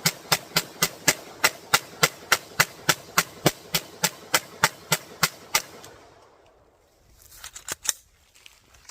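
A 3D-printed MAC-11-style 9mm pistol fired as a mag dump: about twenty shots in quick, even succession, three to four a second, stopping about five and a half seconds in. A few light clicks and rattles follow near the end.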